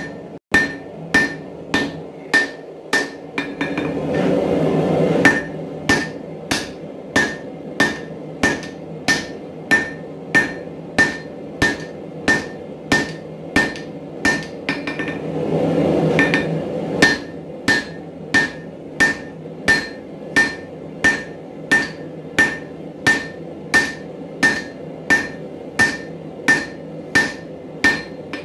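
Hand hammer forging a red-hot 4140 steel axe head on an anvil: a steady rhythm of about one and a half blows a second, each blow ringing briefly. A low rushing noise swells up twice in the background.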